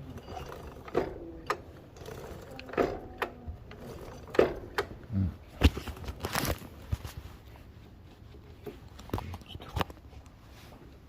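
Hand tools and metal parts clinking and knocking: a series of separate sharp clicks, the loudest about four and a half and five and a half seconds in, thinning out near the end.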